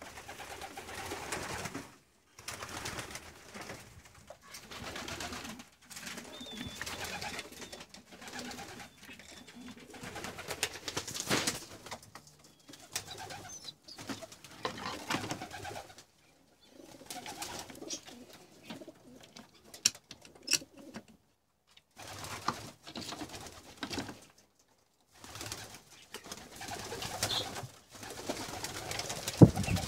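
Domestic pigeons cooing in a loft, in stretches broken by brief silences, with a few sharp knocks and rustles among them.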